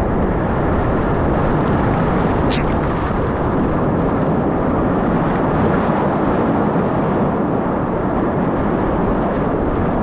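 Loud, steady rush of whitewater rapids around an inflatable raft, with spray splashing over the raft-mounted camera.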